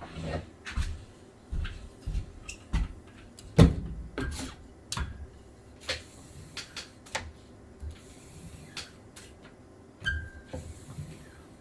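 Hand tools and materials being handled during silkscreen printing work: scattered knocks, taps and clicks at irregular intervals, the loudest about three and a half seconds in, and a short squeak about ten seconds in.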